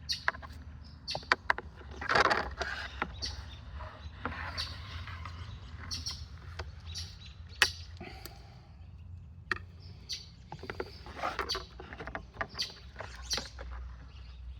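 Irregular clicks, knocks and short scrapes of a plastic beehive's bottom board and entrance gates being handled and cleaned, over a steady low rumble.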